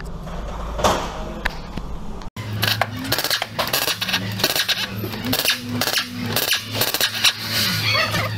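Metal hand tools clinking and clattering against engine parts in a rapid series of short, sharp clinks. The sound breaks off abruptly about two seconds in, then the clinking resumes over a steady low hum.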